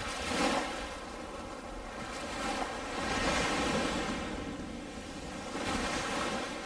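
Waves washing onto a beach, swelling and falling back three times.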